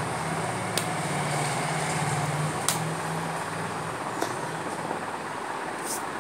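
Steady background hiss with a low hum that fades out about halfway, broken by four sharp slaps of hands striking together during sign language.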